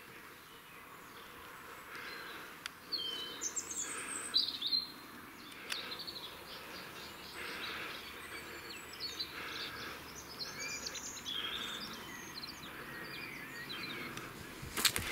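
Small birds singing and chirping, with many short high whistles, over the soft crunch of a hiker's footsteps on a dirt and log-step trail, about one step a second. A sharp knock comes near the end.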